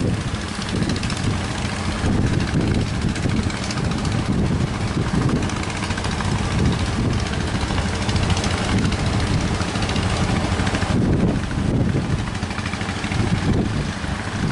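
Boat engine running steadily, with wind and sea noise.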